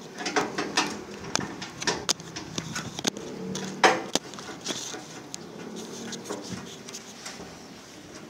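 Irregular light clicks and knocks, with the sharpest knock about four seconds in.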